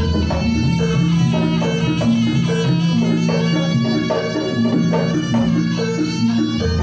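Live jaranan gamelan music: a reedy shawm-like wind instrument plays a sustained melody over a pattern of short repeated metallophone and gong notes.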